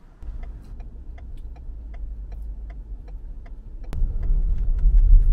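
Inside a moving car: a steady low engine and road rumble with a turn signal ticking evenly, about two and a half ticks a second. About four seconds in, the rumble grows much louder.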